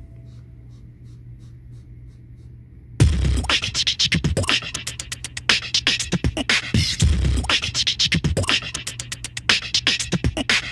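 Background music: a faint, quiet start, then about three seconds in a loud beatbox-style beat with dense percussive hits and heavy bass comes in and runs on.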